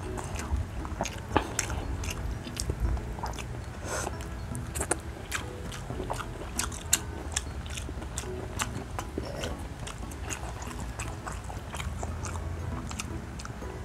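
Close-miked eating sounds of roast chicken (lechon manok): biting and chewing, with many small sharp clicks and smacks scattered throughout.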